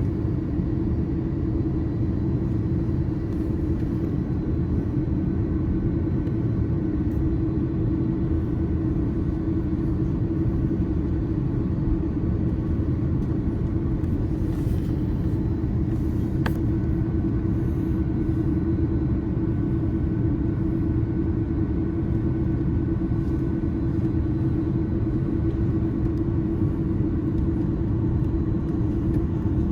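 Steady cabin drone of an Airbus A330-300 airliner, engine and airflow noise with a constant low hum, with one faint click about halfway through.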